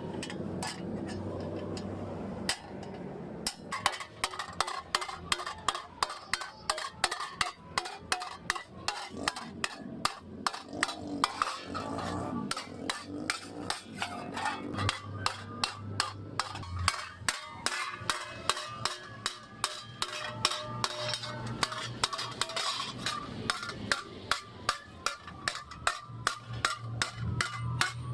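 Blacksmith's hammer striking metal in a steady rhythm of sharp blows, about two a second, starting a few seconds in.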